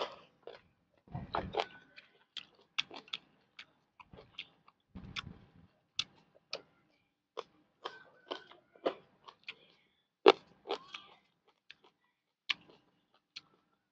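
Close-miked chewing of rice vermicelli and pork offal: irregular wet lip smacks and mouth clicks, several a second, with a couple of short low thumps about a second in and about five seconds in.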